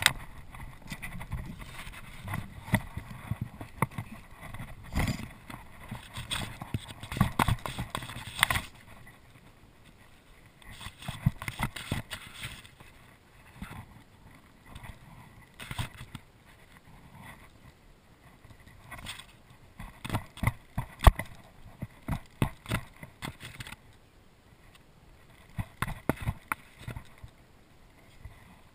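Irregular taps and knocks on a kayak hull with small slaps of water against it, coming in clusters with quieter stretches between.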